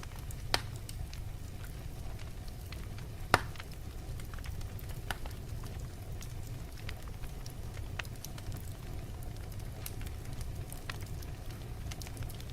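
Wood fire burning in a fireplace: a steady low rumble with frequent sharp crackles, and two louder pops about half a second and three and a half seconds in.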